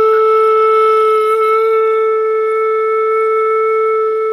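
Flute headjoint played on its own, blown gently: one long, steady note.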